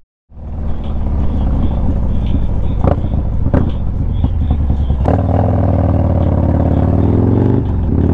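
Harley-Davidson Low Rider S V-twin engine heard from the rider's seat, running steadily at low speed, then pulling away with rising revs from about five seconds in, with a brief dip near the end as it shifts gear.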